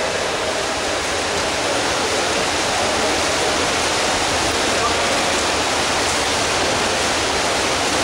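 Steady churning and splashing of water as water polo players swim hard through the pool, heard as an even rushing noise.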